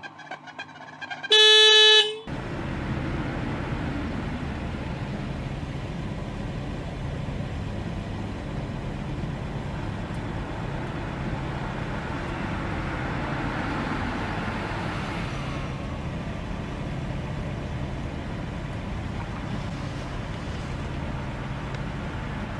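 A car horn sounds once, loud and brief, about a second in. Then the steady engine and road noise of a car driving, heard from inside the cabin.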